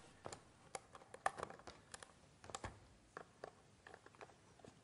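Faint, scattered small clicks and taps of wire being fitted by hand onto the screw terminals of switches mounted on a wooden board.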